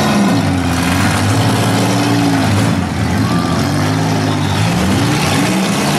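Demolition derby minivan engines revving hard, several at once, their pitch rising and falling as the vans shove against each other.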